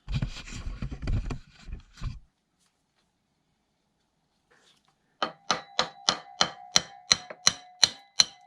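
Handling and scraping of metal parts, then about a dozen light hammer taps on metal at roughly three a second, each ringing, used to work a part loose from a small motorcycle engine.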